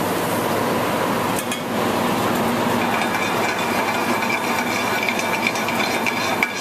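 Steady noise at a commercial gas range, with light scrapes and clinks of metal pans and utensils in the second half. A faint, high, steady tone comes in about three seconds in.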